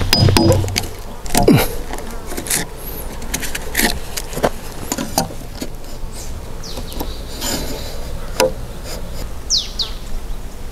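Hand chisel paring shavings from a notch in a timber beam, then a scatter of clicks and knocks as a combination square, a steel rule and the chisel are set on the wood. A steady low buzz runs underneath.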